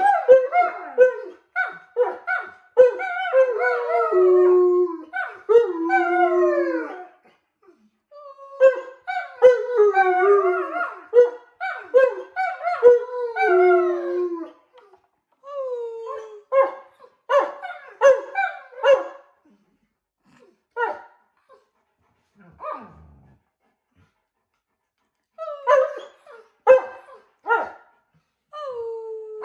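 Alaskan Malamutes howling in bouts: long notes that slide down in pitch, mixed with short yelping woos. About two-thirds through there is a lull with only a few short calls, and the howling picks up again near the end.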